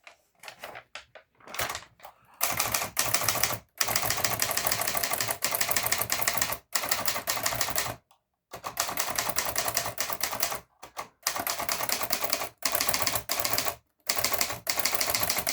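Hermes Baby portable manual typewriter being typed on: rapid runs of clacking keystrokes broken by brief pauses, after a few scattered clicks at the start.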